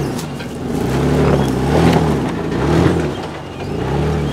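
Engine of a Jeep Wrangler JK Unlimited rock crawling, revving up and easing off about three times as it works its way over a rock ledge.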